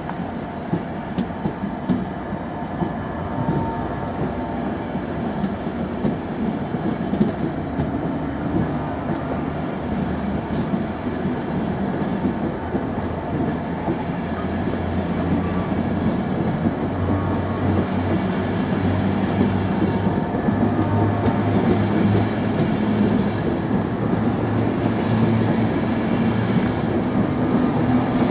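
A train running past on the rails, its wheels clicking over the rail joints. A low hum builds and grows louder over the last ten seconds.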